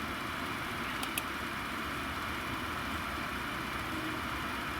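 Car engine idling steadily, warm, with a faint ringing that the mechanics put down to the timing chain. Two faint clicks about a second in.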